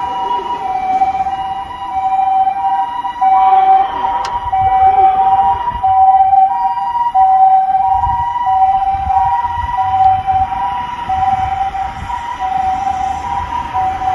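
Japanese emergency vehicle's two-tone 'pee-po' siren sounding on an emergency run, alternating steadily between a high and a low tone, about one high-low pair every second and a quarter. A low vehicle rumble runs underneath.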